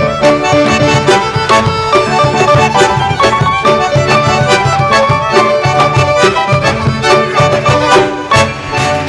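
Live instrumental ensemble of violin, bandoneón, piano and double bass playing a lively piece, cut through by many sharp percussive strikes from the dancer's boot stamps and hand claps.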